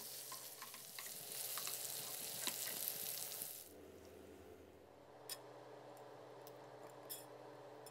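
Stir-fried instant noodles sizzling in a hot nonstick frying pan as a wooden spatula tosses them, with small scraping clicks. The sizzle stops after about three and a half seconds, leaving faint room tone broken by a few soft clicks.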